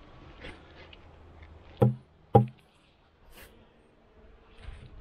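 Two hollow wooden knocks about half a second apart, from wooden hive covers or boxes bumping together as a cover is handled on top of an open beehive.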